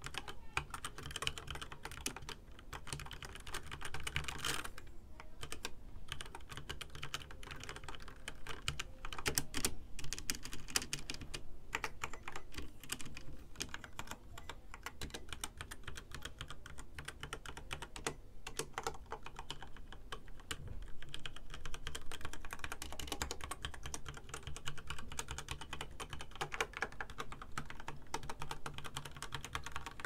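Typing on a HyperX Alloy Origins 60 mechanical keyboard with HyperX Red linear switches and double-shot PBT keycaps: a continuous run of quick key clacks as the keys bottom out.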